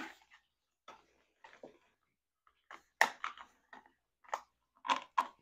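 Hands fitting wire into a plastic cable hider along a golf cart's metal roof strut: a string of short, irregular clicks and crinkles of plastic and wire being handled, the loudest about three seconds in.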